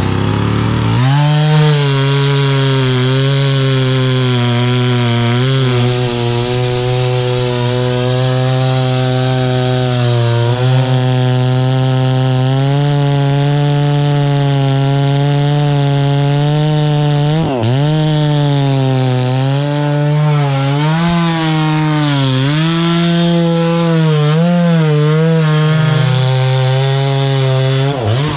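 Gas chainsaw running at high speed, cutting into a large tree trunk. The engine note holds steady for long stretches, then sags and recovers briefly about two-thirds of the way in and wavers over the last several seconds as the saw loads in the cut.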